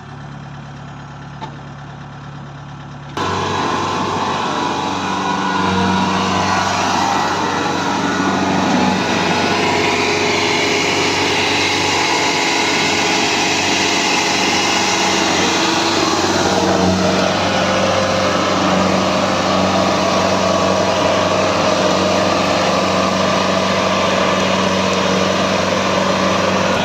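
Kubota DC-70G combine harvester running steadily while harvesting. A quieter steady engine hum for about three seconds gives way abruptly to the much louder, steady running of the machine.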